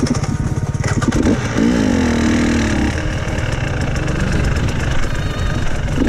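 Enduro dirt bike engine running under way, close to the microphone, the throttle rising and falling as it rides along.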